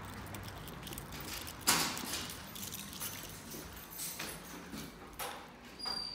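Footsteps walking along a concrete balcony and into a stairwell, with a few sharp knocks, the loudest about two seconds in.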